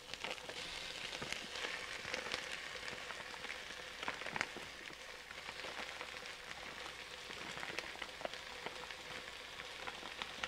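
Onions, serrano peppers and garlic frying in olive oil in a pan over medium heat as ground bison goes in: a steady sizzle with crackles and small clicks.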